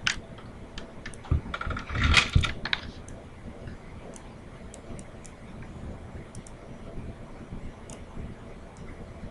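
Handling noise as the camera is repositioned: a few sharp clicks and knocks, loudest in a short cluster about two seconds in, then only scattered faint clicks.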